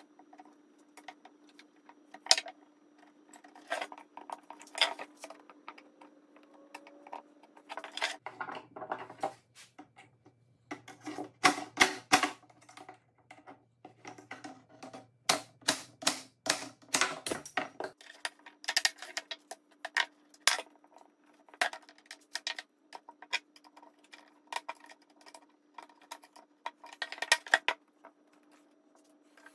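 Irregular sharp metallic taps and clicks, bunched most thickly in the middle: a hammer striking a punch on an aluminium window sash frame to work its rivets out, with hand tools knocked and set down on a plywood bench.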